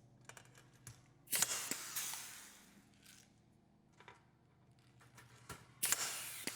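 Light clicks and two short scraping sounds, each fading over about a second, from aluminium louver parts being handled during assembly.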